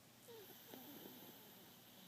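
Faint snoring of a sleeper: one soft breath with short wavering notes in it during the first half.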